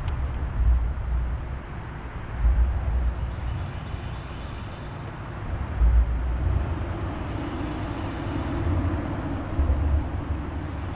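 Wind buffeting an outdoor microphone in irregular low rumbling gusts over a steady rushing background.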